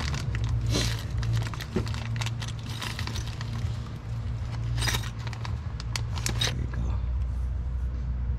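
Light metallic clicking and clinking from pop rivets and the aluminium shield being handled and pushed into place, with a few louder short scrapes, over a steady low hum.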